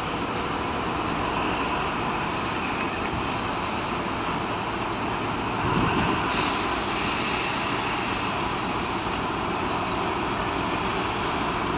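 OSE class A.351 diesel locomotive, with its Pielstick engine, running steadily as it stands at the head of its train, with a brief louder surge about halfway through.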